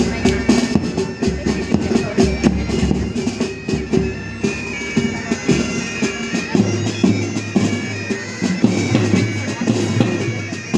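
Pipe band playing: bagpipes with their held drone over drum strokes.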